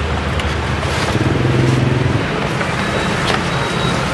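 Road traffic going by on a city street: a motor vehicle's engine hum over steady traffic noise. The hum is strongest for the first two seconds and then eases off.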